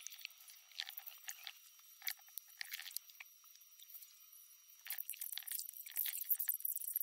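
Scattered small clicks and crackles of people eating at a table: chopsticks and tableware tapping, with mouth sounds. Sparse at first, then much busier from about five seconds in.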